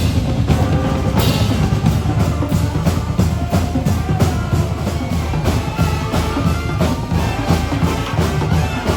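Street band music with a steady beat of bass drum and snare under sustained pitched instruments.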